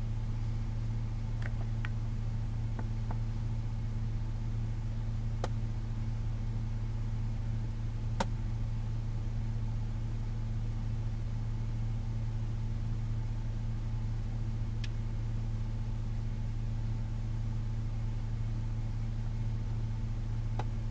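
Vehicle engine idling with a steady low hum, and a few faint clicks now and then.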